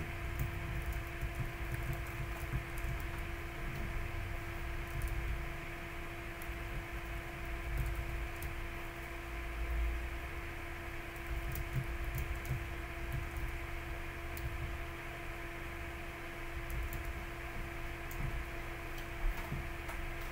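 Computer keyboard typing: irregular key clicks at a slow pace, over a steady electrical hum.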